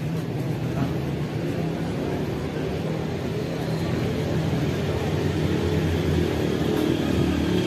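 Street traffic: vehicle engines running with a steady low hum.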